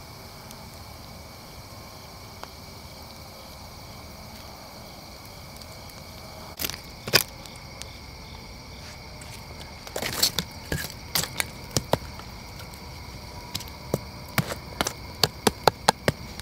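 Bacon sizzling on hot rocks by a campfire: a steady hiss. Sharp clicks and clinks join about six seconds in and come thick and fast in the last few seconds.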